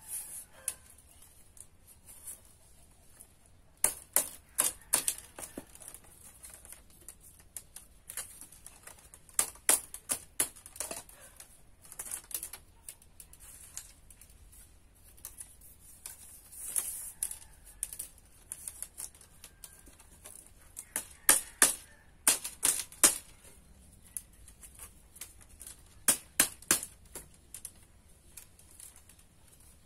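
Bamboo strips clacking and knocking as they are woven and tapped into place, in irregular clusters of sharp clicks with quiet gaps between, and a brief scraping hiss about halfway through.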